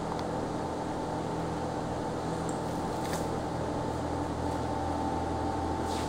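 Steady hum of fans and electrical equipment: a constant low drone with a faint higher whine over it, and a couple of faint ticks.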